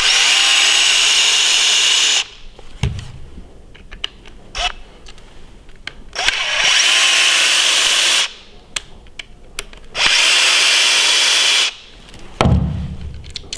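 Cordless drill driver spinning out the screws that hold an angle grinder's gearhead, in three runs of about two seconds each with a steady high whir. Light clicks of handling come between the runs.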